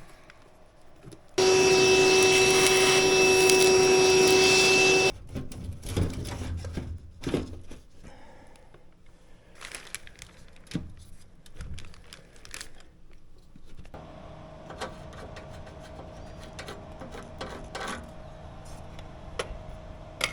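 An electric tool motor runs steadily for about four seconds, starting and stopping abruptly, followed by scattered knocks and handling clicks. A fainter steady hum comes in later on.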